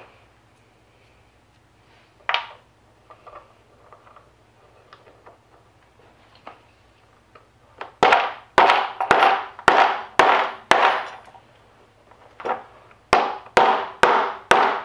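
Hammer driving a fitting into a wooden toboggan crossbar: a few light knocks and tool handling, then about six sharp blows at roughly two a second, a short pause, and about five more blows near the end.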